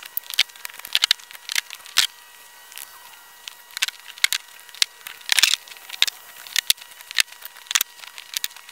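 Split firewood logs clacking against each other as they are pulled off a woodpile and dropped into a plastic sled: irregular sharp knocks, about two a second.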